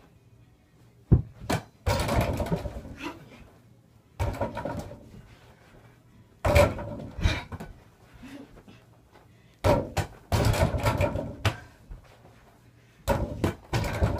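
A small ball striking an over-the-door mini basketball hoop again and again: sharp thuds against the backboard, rim and door every one to three seconds, each followed by about a second of rattling.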